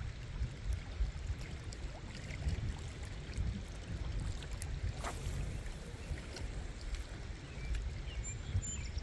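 Wind buffeting the microphone: an uneven low rumble, with a few faint ticks.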